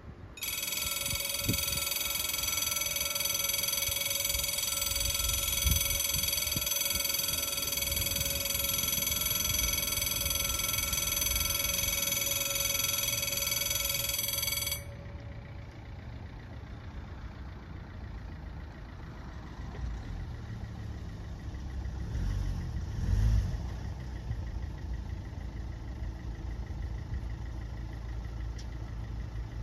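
French level-crossing warning bells ringing with a steady, many-toned electronic ring that starts about half a second in while the half-barriers lower, then cuts off abruptly about 15 seconds in. A low engine rumble carries on after, swelling briefly a little past 20 seconds.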